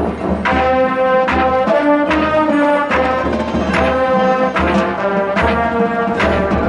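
High school marching band playing live: the brass section holds loud chords that shift, with sharp percussion accents struck several times across the passage.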